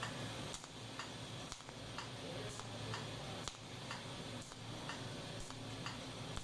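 Pulsed arc of a Dr. Yozo DY-1000 micro TIG welder, ticking with each pulse, about two sharp ticks a second over a faint steady hiss.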